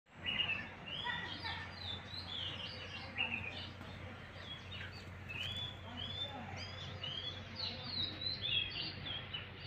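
Birds chirping: many short, quick calls that overlap, several a second, over a faint steady low hum.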